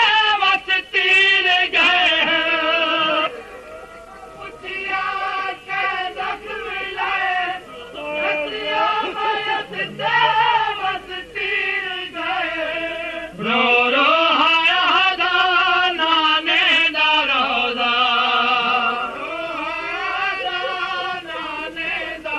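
A voice singing a Punjabi devotional kalam, a lament, on long ornamented notes that waver and slide in pitch. It is quieter for a few seconds about four seconds in, then sings out fully again.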